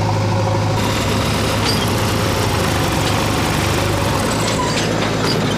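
New Holland 3630 tractor's three-cylinder diesel engine running loud and steady, the sound turning harsher about a second in, as the tractor tries to work its way out of soft, rocky ground.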